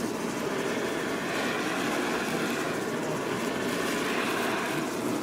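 Steady rushing background noise at a street-food stall, with no clear strokes or tones.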